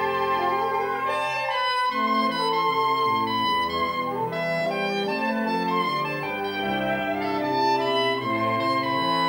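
Saxophone ensemble of soprano, alto, tenor and baritone saxophones playing sustained chords, the parts moving to new notes together about every second.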